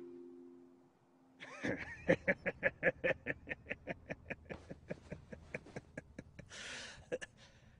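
A man laughing hard in a long run of quick 'ha's, about six a second, loudest at first and then tapering off. A breathy sound follows near the end.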